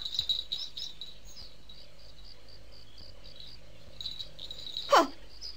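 Crickets chirping in a steady, regular pulse of about four high chirps a second. Near the end, a short, loud sound slides sharply down in pitch.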